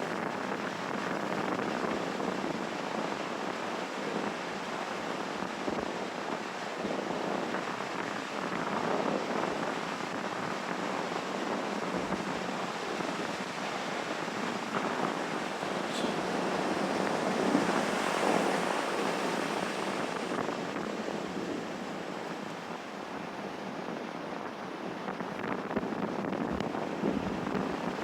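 Sea waves washing onto a shore in a steady hiss that swells and falls back, loudest about two-thirds of the way through.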